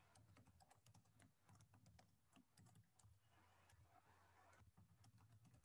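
Faint typing on a computer keyboard: quick, irregular key clicks, several a second.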